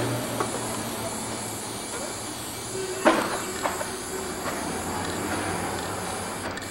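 Aerosol spray paint can hissing steadily, with a sharp click a little after three seconds in and a fainter one just after.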